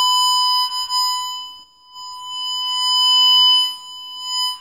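Constant tone from a wire tracer's inductive probe speaker, picking up a tone generator's signal: one steady pitch of about 1 kHz. It dips almost away once and swells louder again as the probe moves, since it gets louder the closer the probe is to the wire carrying the signal.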